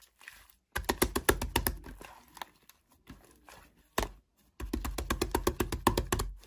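Fluffy pink slime dotted with small beads being squeezed and pressed by hand, giving off rapid trains of clicking and popping. The clicks come in two bursts, one about a second in and a louder one past the middle.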